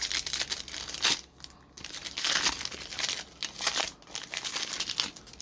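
Trading-card pack wrapper being torn open and crinkled by hand, a busy crackling that comes and goes in several bursts with short pauses.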